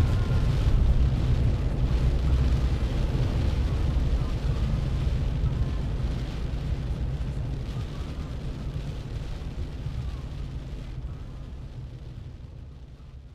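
Deep, steady rumbling storm noise at the shore: heavy typhoon rain and surf, slowly growing quieter and fading out at the very end.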